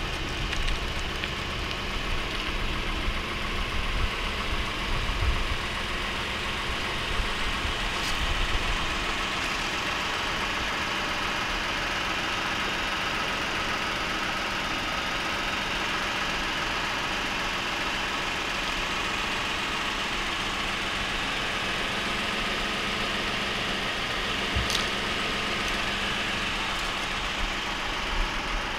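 Ford Police Interceptor Utility's engine idling steadily.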